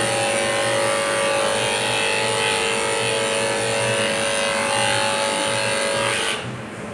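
Corded electric dog clippers running with a steady buzz as they shave a Pomeranian's coat, dropping away about six seconds in.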